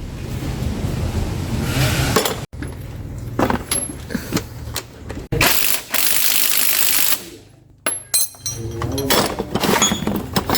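Mechanic's tools working on a car's rear differential: metal clinks and ratcheting, with a steady noisy stretch of about two seconds in the middle, broken by abrupt cuts.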